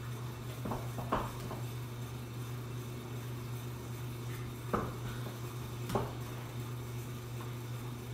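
High-heeled shoes clicking on a hard tile floor as she shifts her feet between poses: a couple of sharp clicks about a second in, then two more about five and six seconds in. A steady low hum runs underneath.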